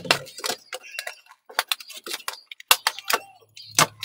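Quick clicks, taps and crackles of plastic retail packaging being handled around a sealed DDR3 RAM kit, with a few louder snaps.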